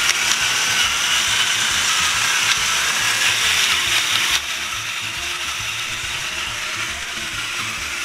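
Battery-powered electric pepper grinder running: a small motor whirring with a gritty grinding rattle as peppercorns are ground. It gets quieter about four seconds in and keeps running.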